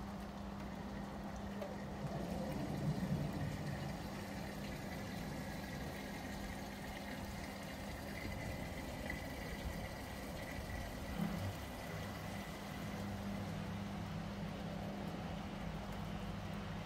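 A steady low mechanical hum over outdoor background noise, growing louder for a moment about two to three seconds in.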